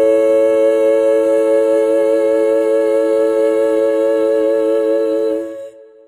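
Background music: a long held chord of steady tones with a slight waver, fading out near the end.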